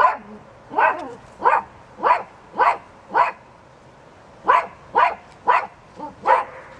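A dog barking repeatedly: about ten short, sharp barks in two runs, with a pause of about a second near the middle.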